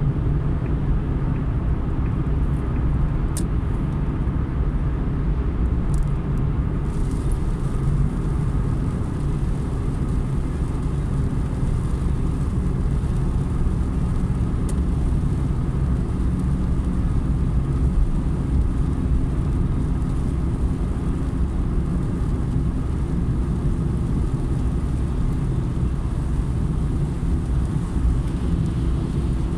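A car driving on a rain-wet road: steady, low road and engine noise. A few faint brief ticks come in the first seven seconds and once near the middle.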